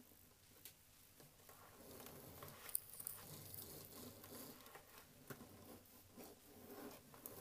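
Faint low hum of the 1958 Fleischmann V200's model-train motor running on the track, with soft crackling and small clicks, the kind of sound that tells of the loco still shorting out somewhere.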